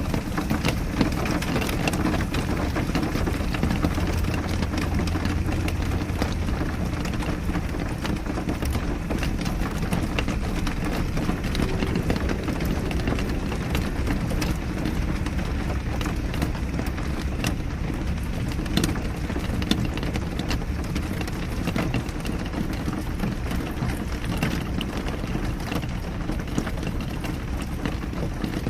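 Steady rain falling, with many individual drops heard as sharp ticks over a continuous hiss.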